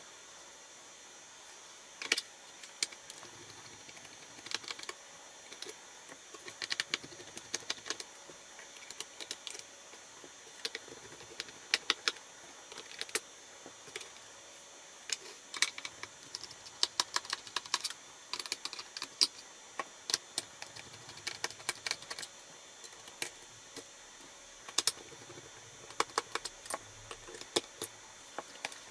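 Irregular sharp clicks and taps of a small screwdriver, tiny screws and fingers against a laptop's plastic bottom case as it is unscrewed and taken apart, some clicks coming in quick clusters.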